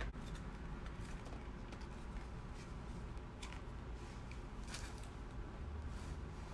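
Soft plastic clicks and rustles as a PVC figure's boots are pushed onto the pegs of its clear plastic display base and the figure is pressed down to stand, with a handful of separate clicks, the sharpest about five seconds in.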